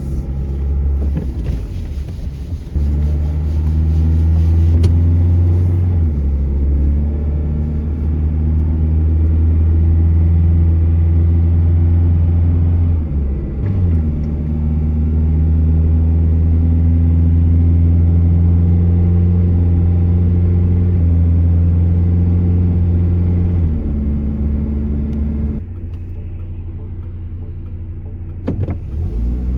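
Chevy S10 pickup driving on a road test: steady engine drone and road noise, with the engine pitch stepping up and down several times as it changes speed and gears, a short dip about halfway through, then quieter near the end as it eases off.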